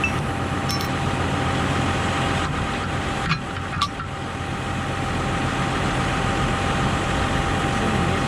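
Tractor engine idling steadily, with a few sharp metallic clinks about a third of the way and halfway through, typical of hitching up an implement.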